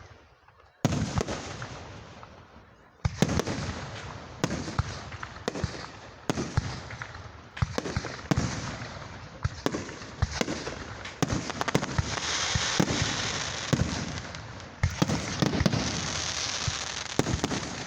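Aerial fireworks show: sharp shell bursts with echoing booms, first a couple a few seconds apart, then coming quickly one after another, with a dense crackling hiss filling in over the bursts about two-thirds of the way through.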